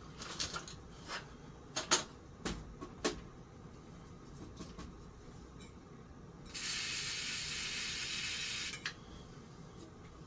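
A few small clicks and knocks of metal fan-motor parts being handled, then a steady hiss of an aerosol spray lasting about two seconds, aimed into the stiff motor to free it up.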